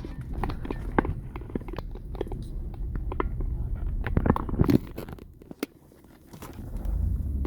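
A vehicle rolling slowly over debris: crunching and scattered sharp clicks over a low rumble, louder about four seconds in, then dropping away for a moment before the rumble comes back.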